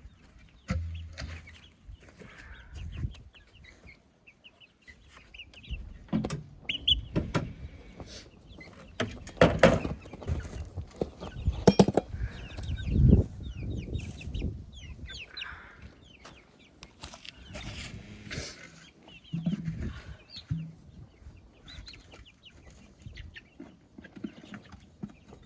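Baby chicks peeping steadily while they feed, with scattered knocks and rustling, loudest a few seconds past the middle.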